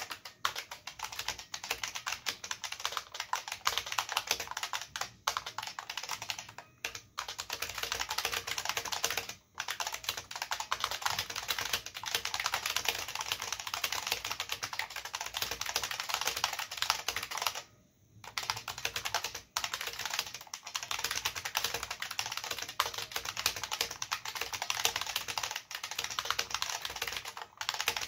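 Fast, continuous typing on an IBM Model F122 keyboard: capacitive buckling spring switches clicking under PBT dye-sub keycaps, with a few brief pauses, the longest about 18 seconds in.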